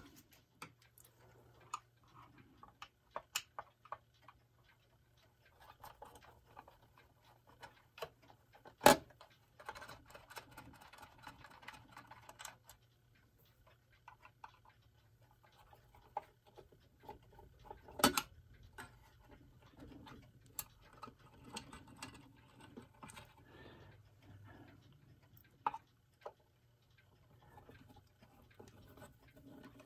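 Small screws being undone by hand with a screwdriver on a clock's case: scattered light clicks and stretches of faint scraping. Two sharper clicks come about nine and eighteen seconds in, over a faint steady low hum.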